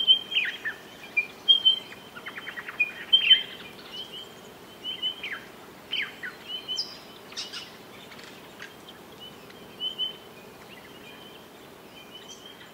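Small songbirds chirping: short high chirps and quick falling notes, with a brief rapid trill about two seconds in, growing sparser and fainter toward the end, over faint steady background noise.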